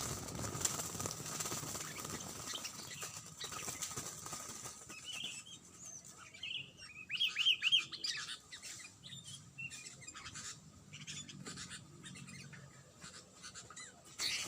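Sooty-headed bulbuls chirping, with a quick run of about four notes about seven seconds in, over rustling and wing flapping.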